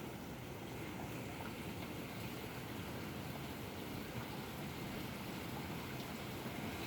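Steady outdoor city ambience heard from an apartment: an even, low wash of distant noise with no distinct events.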